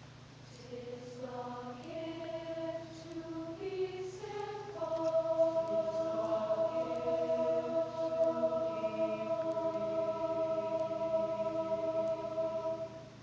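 Mixed middle-school choir singing a slow passage of sustained notes, settling into one long held note from about five seconds in and releasing it just before the end.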